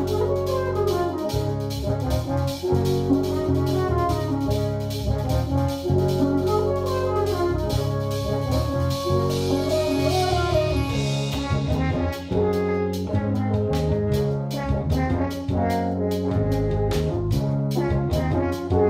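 Ensemble of eight French horns playing sustained chords and moving lines over a rhythm section of electric bass, drum kit and percussion. About twelve seconds in the texture thins and a steady run of drum and cymbal strokes comes forward.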